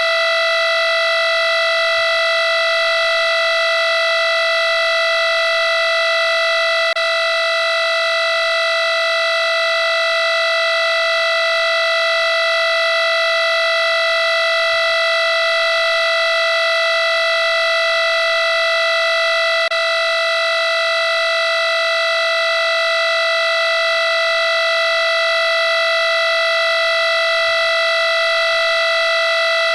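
Electronic alarm-clock alarm sounding: one pitched tone with many overtones, held steady in pitch and level.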